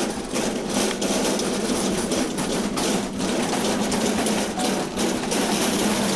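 A small engine or motor running steadily, with irregular knocks and rattles over it.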